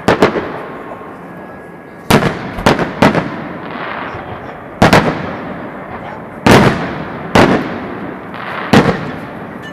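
Aerial firework shells bursting overhead: about eight sharp bangs at irregular intervals, some in quick pairs, each followed by a trailing echo.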